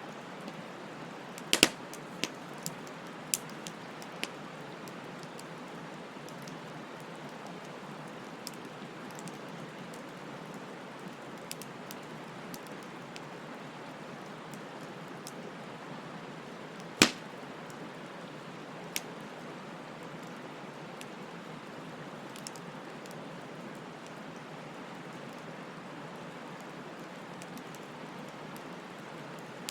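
Wood fire burning: a steady hiss of flames with scattered sharp crackles and pops. The loudest pops come about a second and a half in and again about halfway through.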